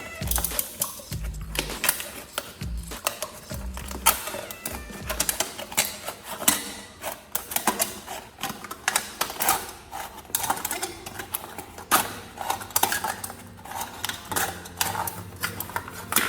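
Rapid, irregular clicking and tapping, with background music whose bass line is heard during the first five seconds or so.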